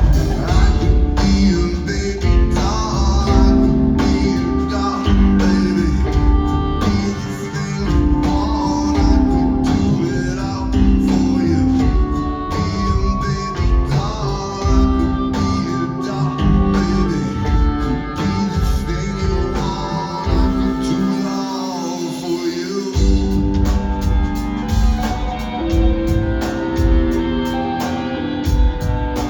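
Live rock band mid-song: drums, bass and guitar with singing over them. The bass and kick drum drop out for about two seconds past the middle, then come back in.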